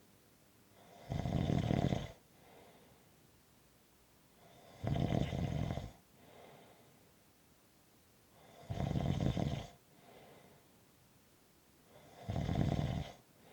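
Snoring in sleep: four loud snores, about every three and a half seconds, each lasting about a second, with a faint breath between them.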